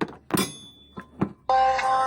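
A few short sharp clicks and knocks, then about halfway through a loud sustained pitched tone starts and later steps up in pitch.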